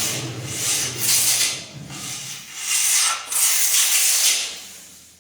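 Repeated scraping strokes of a hand tool on wood, about one a second, dying away near the end.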